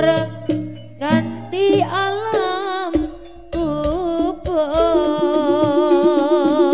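Live Javanese jaranan ensemble music: a wavering, overtone-rich melody line over a low sustained tone at first, joined by a quick repeated note from about five seconds in.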